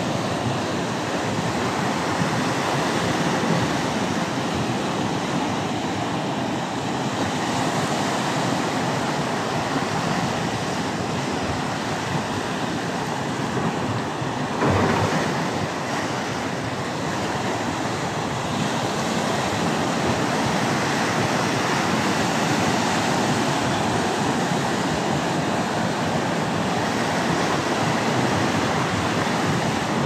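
Sea surf washing and foaming over shoreline rocks: a steady rush of churning water, with one brief thump about halfway through.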